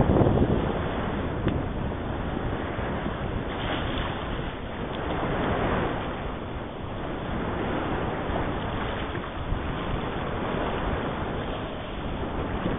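Wind buffeting the microphone over small choppy waves washing at the water's surface, with a stronger gust in the first second before it settles to a steady rush.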